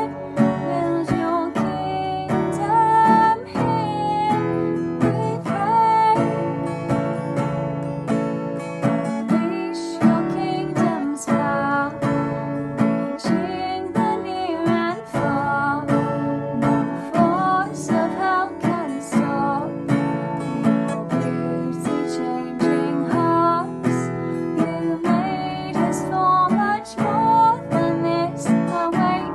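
Acoustic guitar strummed in a worship song, chords ringing steadily with a melody line over them.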